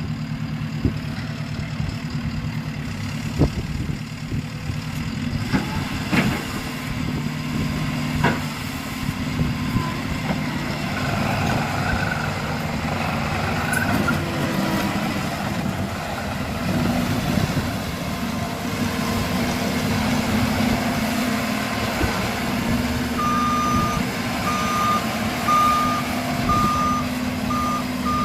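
JCB 270T skid steer's diesel engine running steadily, with a few sharp knocks in the first several seconds. Near the end its reversing alarm beeps over and over, about once a second, as it backs up.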